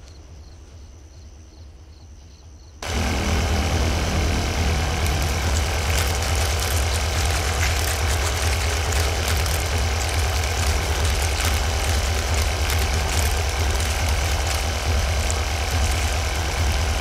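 A loud, steady, engine-like rumble with a fast even pulse, cutting in abruptly about three seconds in after a quiet stretch.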